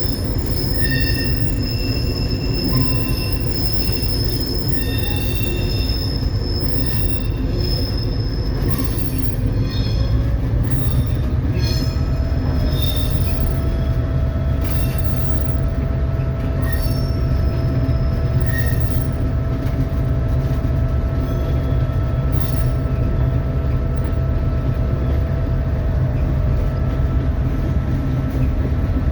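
Locomotive hauling ballast cars along the track: a steady heavy rumble of engine and rolling wheels, with high wheel squeals coming and going over the first half. From about halfway through a steady whine holds instead.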